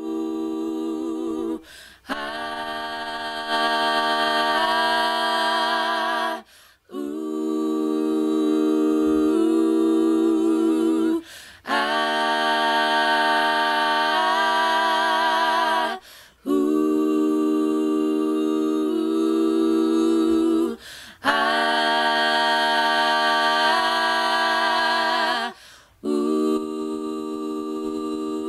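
A cappella vocal recording of layered, held notes with vibrato, sung in phrases of about four to five seconds with short breaks between them. It is played through an Altec 1591A mic preamp and compressor while its line gain and compression are adjusted, and the level steps up partway through some phrases.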